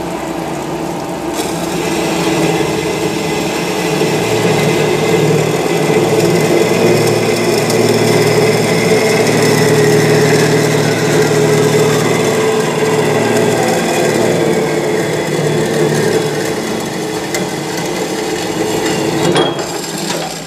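Semi-hydraulic metal-cutting band saw running and cutting through a steel pipe under flowing coolant: a steady machine sound, with a tone that slides downward midway through the cut.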